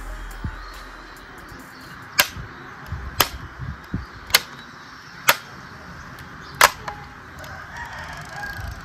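Sharp clicks, about a second apart, of a 1:24 diecast Audi A8 model's hinged trunk lid and doors being worked by hand.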